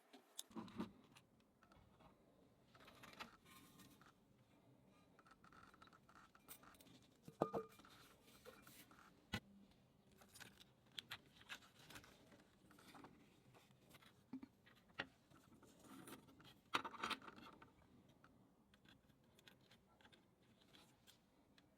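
Faint, scattered clicks, taps and scraping of small objects being handled. The sharpest click comes about a third of the way in, with a brief ring, and a short cluster of louder scrapes and clicks comes a little past three quarters of the way through.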